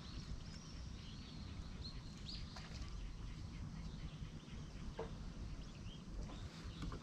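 Outdoor ambience: scattered short, high bird calls over a steady low rumble.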